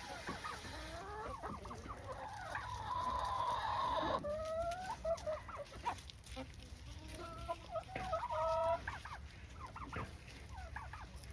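A flock of hens clucking, with many short calls overlapping and a few longer drawn-out calls in the middle.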